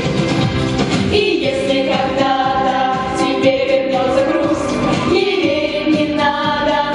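Young voices of a vocal ensemble singing a pop song together into handheld microphones, with long held notes over accompanying music with a steady beat.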